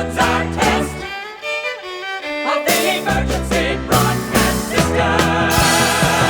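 Music playing, with held notes that change pitch; the bass drops out for about a second and a half, starting about a second in.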